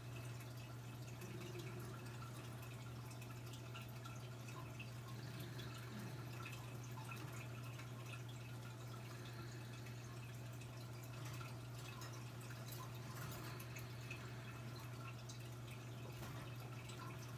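Room tone: a steady low hum with faint, scattered small ticks and no clear event.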